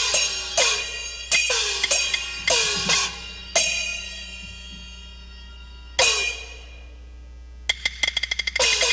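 Taiwanese opera percussion section playing gongs, cymbals and drum. A run of quick strikes, each with a ring that bends down in pitch, is followed by two single crashes left to ring out. Near the end a fast clatter of light strikes builds back into full, dense playing.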